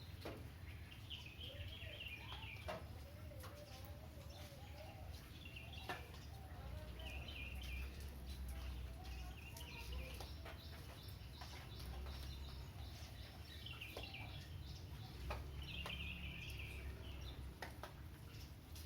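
Birds calling outdoors: short chirping phrases come again and again, with a lower wavering call a few seconds in, over a steady low rumble of wind on the microphone.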